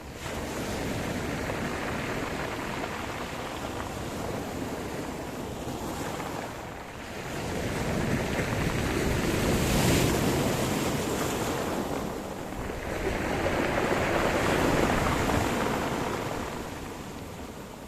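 Sea surf: waves rolling in and breaking, the wash swelling to two loud surges in the second half and ebbing between them.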